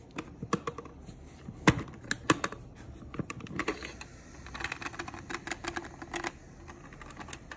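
Electric lunch box being opened: a run of sharp plastic clicks and knocks from its lid and handle, the loudest about two seconds in. Then a couple of seconds of rubbing and scraping as the plastic cover is lifted off the stainless-steel inner pot.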